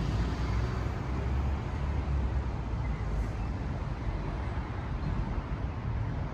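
Steady low rumble of road traffic and street ambience.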